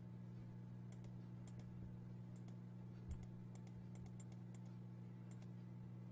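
Faint, irregular clicks of a computer keyboard over a steady low electrical hum, with one soft low thump about three seconds in.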